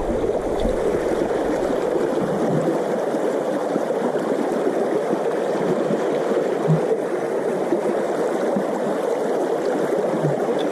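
Shallow stream water running and babbling steadily.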